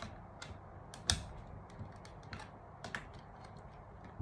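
Light, irregular clicks and taps from hands working wires and a small screwdriver inside an open plastic crane pendant push-button controller, with one sharper click about a second in.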